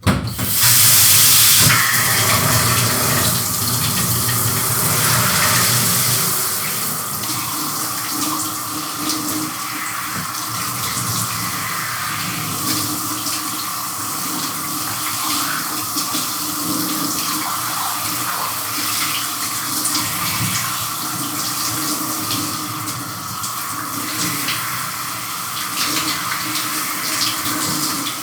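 Shower running, its spray hissing steadily with irregular splashes as water strikes a person and the surfaces around them. It is loudest for the first few seconds, then settles a little lower after about six seconds.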